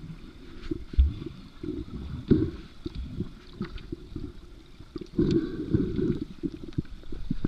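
Water sloshing and gurgling, muffled through a GoPro's waterproof housing: irregular low rumbles with faint clicks, louder for a second or so about five seconds in.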